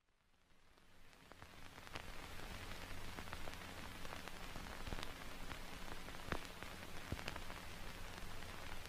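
Steady hiss with scattered crackles and a low hum, fading in over about the first two seconds.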